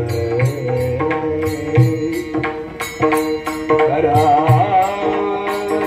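A devotional group bhajan played through a PA system: men singing together over steady held notes, small hand cymbals (taal) struck in a steady beat of about two to three strokes a second, and low drum strokes.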